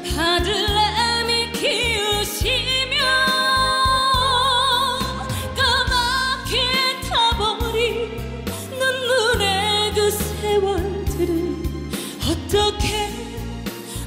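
A woman singing a Korean trot song live into a microphone over band accompaniment, holding long notes with a wide vibrato.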